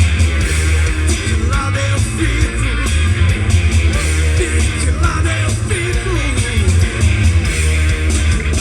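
Punk rock band playing loud, with strummed distorted electric guitars over bass and drums.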